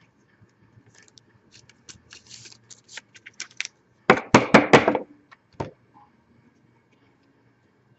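Hands handling baseball trading cards: faint clicks and rustles, then a louder run of quick sharp clicks and scrapes about four seconds in, and one more click about a second later.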